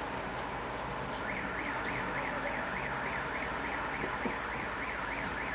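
Electronic siren tone sweeping quickly up and down, about three to four sweeps a second, starting about a second in, over steady low street noise.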